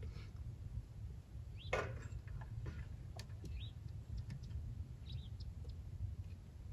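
Low wind rumble on the microphone, with a few short bird chirps and one brief clatter a little under two seconds in.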